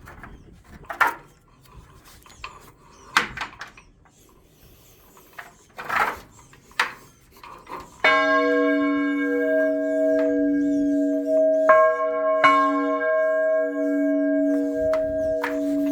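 Scattered knocks and scrapes, then about halfway through a 1631 church bell cast by Joseph Hatch is struck once and rings out with a steady, layered hum. It is struck twice more in quick succession a few seconds later and keeps humming.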